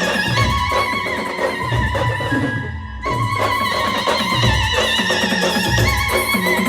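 Khandeshi Adivasi band music, an instrumental passage: a wavering, vibrato lead melody over heavy drum beats and bass. The high part of the sound briefly drops out just before three seconds in, then the full band returns.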